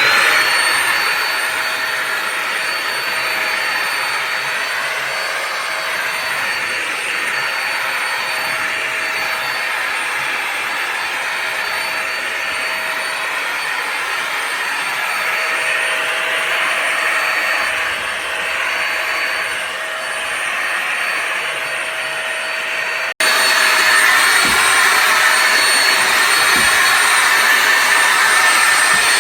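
Bissell Symphony Pet all-in-one steam mop and vacuum running: a steady high motor whine over a rushing hiss. About 23 seconds in it breaks off for an instant and comes back slightly louder.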